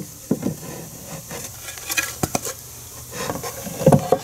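A pine box side board being set down and shifted against a plywood block: wood rubbing and scraping on wood, with a few sharp knocks, the loudest near the end.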